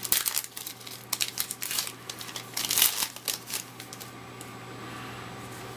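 Plastic wrapper of a 2008 Upper Deck Icons football card pack being torn open and crinkled, a run of crackles that dies away about three and a half seconds in.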